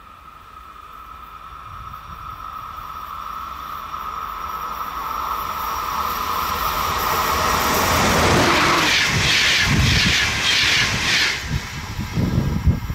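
Siemens Vectron electric locomotive approaching and passing at speed. A steady high whine grows louder as it comes closer, and the rush of wheels on rail is loudest as it goes by. Low, gusty rumbles follow near the end.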